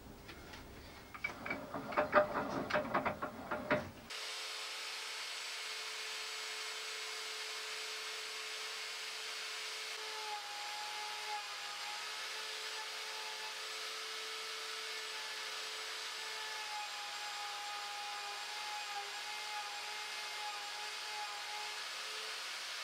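A few seconds of knocks and clicks as a pine blank is fitted into the lathe, then the router and motor-driven lathe of a homemade spiral-cutting jig running steadily, with a faint wavering whine over an even motor noise.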